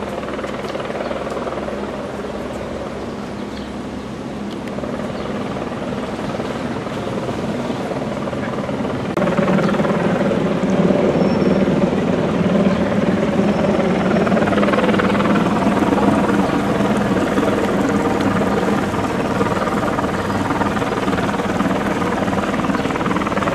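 A steady engine drone that steps up louder about nine seconds in and holds.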